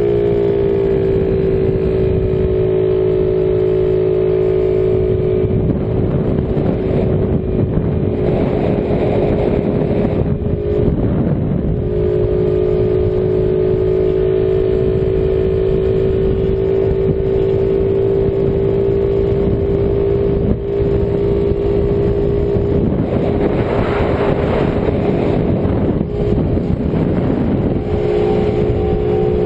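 Small motor scooter engine running at cruising speed, its note rising briefly at the start as it accelerates and then holding steady. Wind rushes over the microphone throughout and swells twice, around the middle and again near the end.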